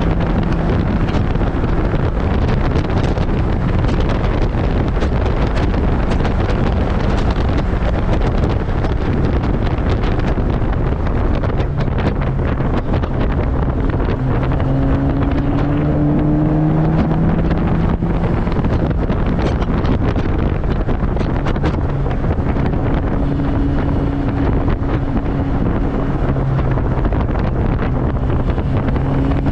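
Turbocharged Mazda Miata's 1.8-litre four-cylinder on track, its note climbing under acceleration and dropping several times, heard from the open cockpit under heavy wind rush across the microphone.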